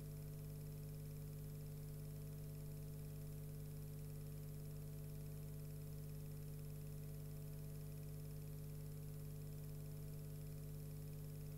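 Steady electrical hum with a faint hiss. Nothing else is heard: no fire crackle and no voices.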